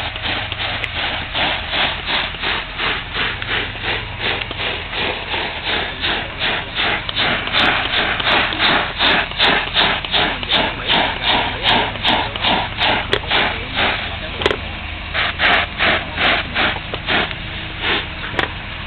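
Steady low roar of a pressurized brass blowtorch burning paint off an embossed copper panel, overlaid by a rhythmic rubbing or scrubbing sound at about three strokes a second.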